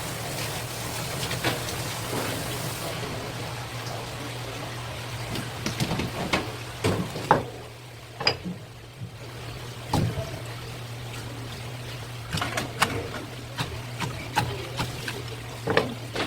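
Water running, which cuts off about three seconds in, followed by a string of sharp knocks and taps from handling and cutting work, over a steady low hum.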